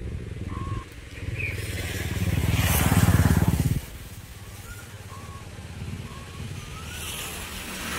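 A small engine running with a rapid low throb. It grows louder to a peak about three seconds in, drops off suddenly just before four seconds, then runs on more quietly.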